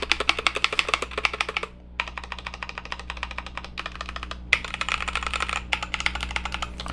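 Fast typing on a wireless mechanical keyboard: a quick, steady run of key clicks, broken by two short pauses about two seconds and four and a half seconds in. The typing sound is not clacky.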